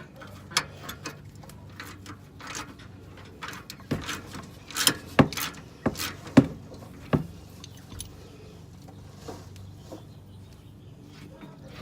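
Irregular metallic clinks and knocks of hand tools and a freed bolt being handled, about a dozen sharp taps, loudest about five to seven seconds in.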